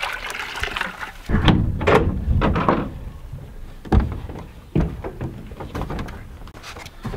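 Several dull thuds and knocks on the wooden boards of a chicken coop, with a low rumble in between.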